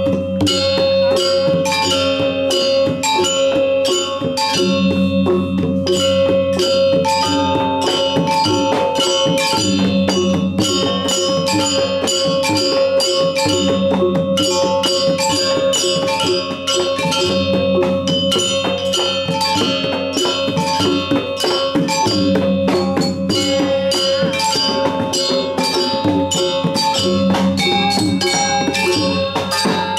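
Balinese gamelan pelegongan ensemble playing: bronze-keyed metallophones struck with mallets in fast, dense patterns, over kendang hand drums, with a deeper tone returning every two to three seconds.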